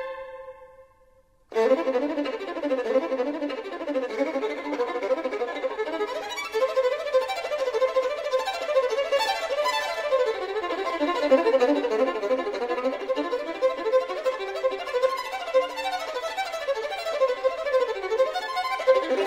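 Violin playing fast runs of notes that sweep up and down, starting about a second and a half in after a brief hush.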